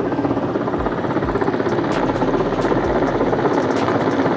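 Military helicopter flying overhead, its rotor chopping in a steady rapid beat over a constant engine sound.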